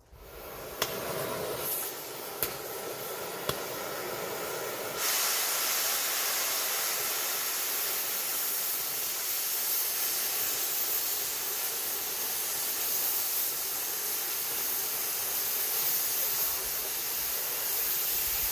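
Oxy-fuel cutting torch hissing steadily as it cuts steel plate, stepping up louder about five seconds in once the cut gets going. A few sharp pops in the first few seconds, the sign of a leaking O-ring in the torch.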